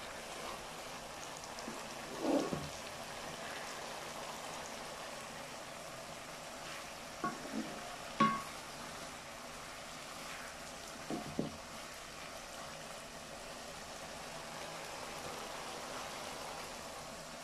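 Sliced bitter gourd and potatoes sizzling steadily in an iron karahi, with a few short scrapes and knocks of a wooden spatula against the pan as it stirs.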